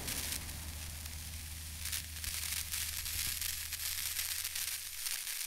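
Faint crackling hiss over a low steady hum.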